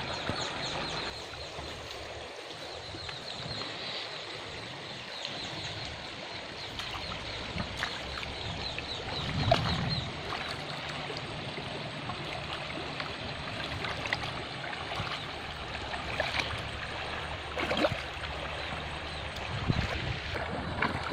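Shallow river water running over stones, with splashing as someone wades through it and a few sudden louder splashes or knocks. High-pitched chirping runs faintly in the background.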